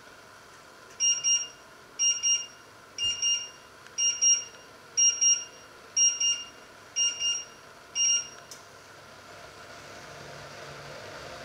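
Electronic kitchen timer alarm beeping in pairs, one double beep a second, eight times, then stopping.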